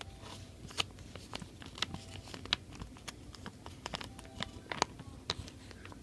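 Irregular small clicks, ticks and crinkles of a clear plastic card-sleeve binder page being handled, a metal pin fixed in it.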